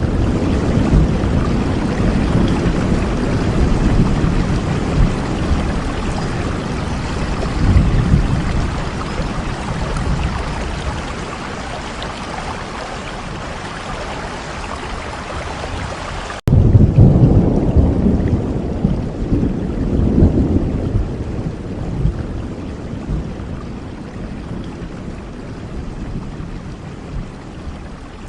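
Heavy rain hissing with thunder rumbling low underneath. About two-thirds of the way through the sound cuts abruptly and a new roll of thunder starts, then slowly fades while the rain goes on.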